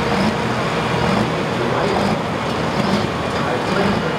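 Diesel engine of an International hot farm pulling tractor running steadily at a low idle after its pull.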